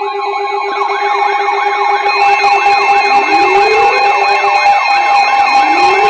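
Several weather alert radios sounding their alarms at once for a Special Marine Warning: overlapping warbling siren tones repeating about two a second over steady beeping alert tones. More alarms join about two seconds in, making it louder and shriller, and a siren sweep rises twice.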